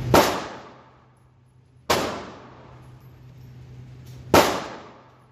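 Three handgun shots fired a couple of seconds apart, each a sharp crack followed by a fading echo.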